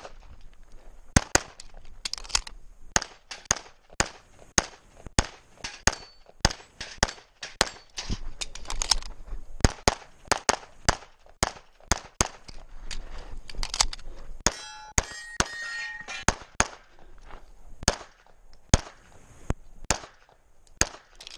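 Pistol fired in quick pairs and strings of shots during a USPSA Production-division stage run, dozens of shots with short pauses between positions. Steel targets clang and ring when hit, with a stretch of ringing metal about fifteen seconds in.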